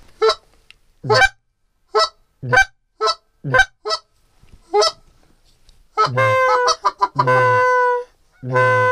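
Hand-held goose calls blown to call in Canada geese: about eight short, separate honks in the first five seconds, then longer, drawn-out honks from about six seconds in.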